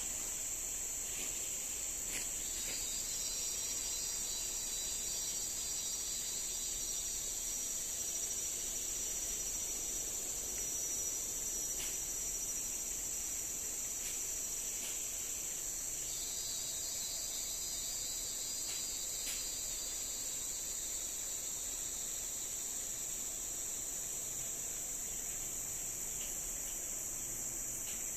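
Steady high-pitched chorus of forest insects, with a second, slightly lower insect buzz joining twice for a few seconds, and a few faint clicks.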